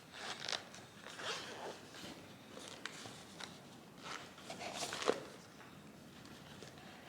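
A cordless drill and its accessories being packed into a soft carrying bag: scattered rustling and short scraping handling noises, with one sharper knock about five seconds in.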